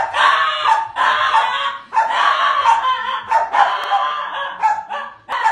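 Small white fluffy dog barking over and over in a fast string of high-pitched yaps.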